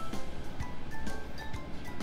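Background music: a light melody of short, clear notes stepping up and down over a soft beat.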